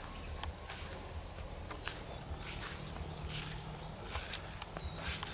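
Farmyard ambience outdoors: scattered short chirps and clicks from animals over a steady low rumble.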